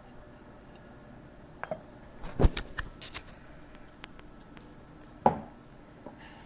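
A cat eating from a stainless steel food bowl, making sharp clicks and knocks against the metal: a cluster about two to three seconds in and one more a little after five seconds.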